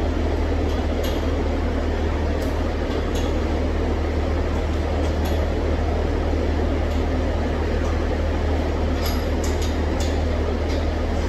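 Mazda RX-7's three-rotor rotary engine idling steadily, with a few light clicks over it.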